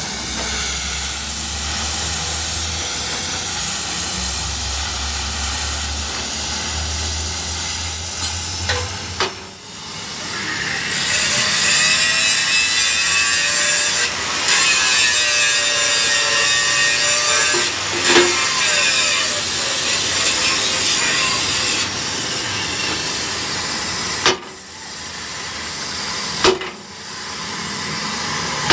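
Gas cutting torch flame hissing steadily against a steel truck axle housing. The hiss grows louder and brighter for about ten seconds in the middle, and it breaks off briefly a few times.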